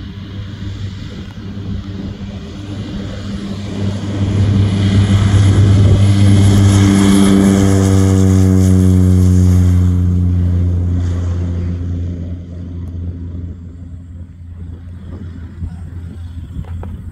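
Cessna 208B Caravan's single PT6A turboprop and propeller at takeoff power during its ground run. The drone swells as the plane approaches, is loudest as it passes, with a high whine on top, then drops in pitch as it passes and fades as it moves away.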